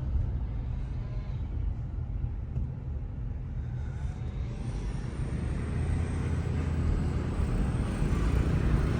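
Car driving: a steady low engine and road rumble that grows louder over the second half.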